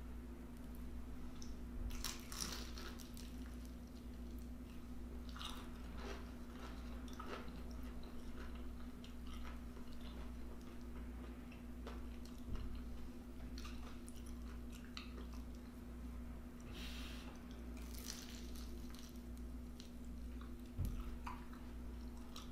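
A person chewing and biting food close to the microphone, with irregular mouth noises, some strokes louder than others. A steady low hum runs underneath.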